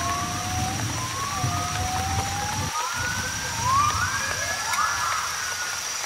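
Rising, whistle-like jungle animal calls, several overlapping at about one a second and climbing higher after about three seconds, over the steady hiss of heavy tropical rain and a high, even insect drone.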